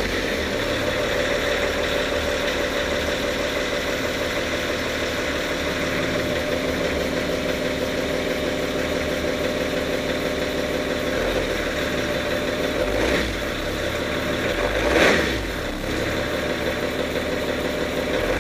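BMW 325d's M57 3.0-litre straight-six turbodiesel idling at the twin tailpipes just after its first start with the diesel particulate filter removed. The engine note swells briefly about 13 seconds in and again, louder, about 15 seconds in.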